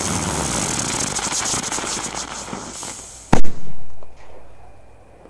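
A 'rose' (роза) firework hissing and crackling as it throws out sparks for about three seconds, then going off with one loud bang, followed by a fading tail and a smaller pop. The bang is powerful.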